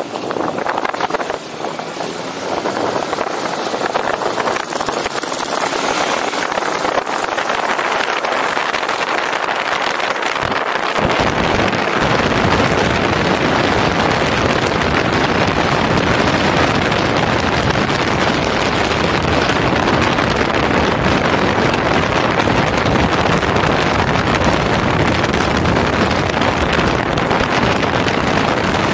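Wind rushing over a motorcycle-mounted camera's microphone while riding, with the bike's running noise mixed in. The rush grows louder and deeper about eleven seconds in and then holds steady.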